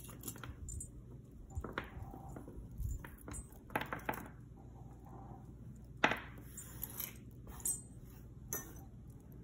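A beaded necklace of turquoise and metal tube beads clicking and clinking as it is picked up and handled, with several short, sharp clicks scattered through.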